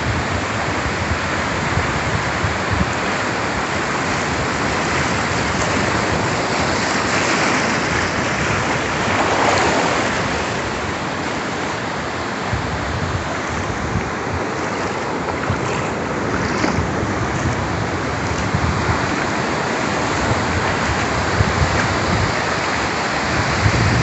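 Sea surf washing up a flat sandy beach: a steady hiss of breaking waves and shallow foam running over the sand, swelling once about ten seconds in.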